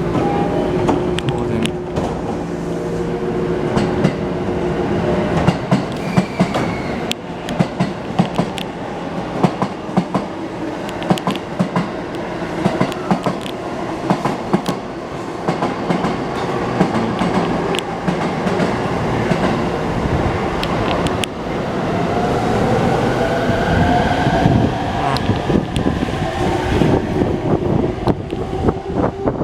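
E231-series electric train accelerating away from a station: the refitted inverter and traction motors whine, their tones climbing in pitch later on, over irregular clacking of wheels on the track.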